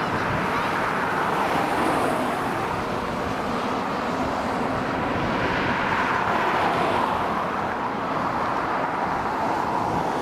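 Road traffic passing close by: car tyre and engine noise that swells and eases a few times without a break.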